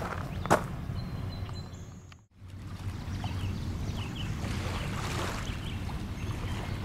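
A footstep on a woodland trail about half a second in, then a brief drop to silence a little after two seconds. After that comes steady outdoor ambience: a low rumble with a few faint bird chirps.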